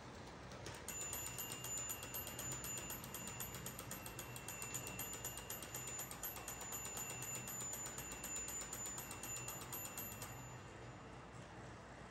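Mantua/Tyco GP-20 HO-scale model locomotive's electric motor and gear drive running: a rapid, even clicking with a thin high whine. It starts suddenly about a second in and cuts off about two seconds before the end.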